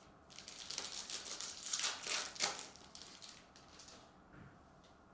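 Mosaic soccer trading cards being handled and sorted by hand: rustling and sliding of card stock for about three seconds, with a few sharper flicks, then quieter.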